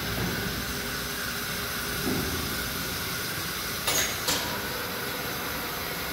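Electric motor of a 3-ton overhead bridge crane running with a steady whine, with two sharp clicks about four seconds in.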